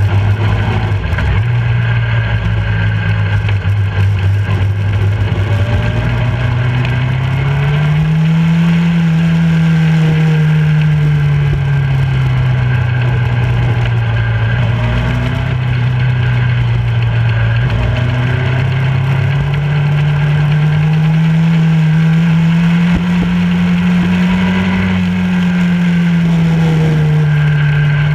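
Motorcycle engine running at road speed through curves, with a steady rush of wind noise. Its pitch climbs slowly about a third of the way in, drops back, then climbs again past the middle and eases off near the end as the throttle opens and closes.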